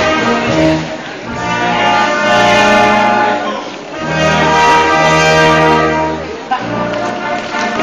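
Brass band playing a folk dance tune in long held chords with a deep bass line, easing briefly about a second in and again near four seconds in.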